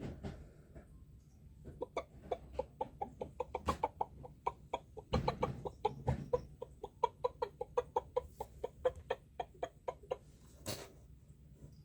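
Chicken clucking in a rapid run of short clucks, about four or five a second, starting about two seconds in and stopping near the end. There are a couple of low thumps midway and a sharp click just after the clucking stops.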